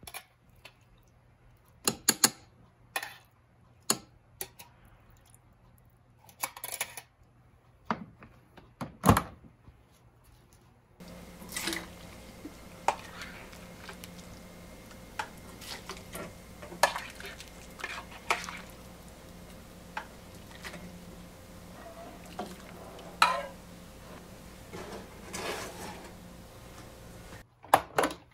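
Kitchenware being handled: scattered sharp clacks and clinks of food and utensils at a rice cooker's open inner pot, then a steady background hum with light clinking and clattering of stainless steel bowls and utensils. A click near the end as the rice cooker lid is pressed shut.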